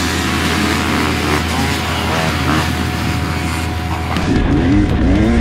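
Several dirt bike engines revving hard and accelerating away together at a race start, their pitch climbing and dropping repeatedly as the riders rev and shift.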